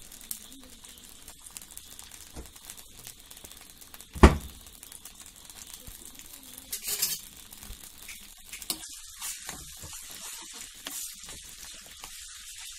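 Diced potato frying in coconut oil in a pan: a faint steady sizzle with scattered crackles, broken by one sharp knock about four seconds in. A spoon stirs the potatoes near the end.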